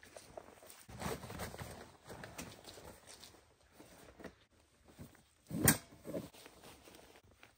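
Footsteps on forest ground and the rustle of a fabric cover being pulled off a loaded plastic sled, with one sharp knock about five and a half seconds in as the gear in the sled is handled.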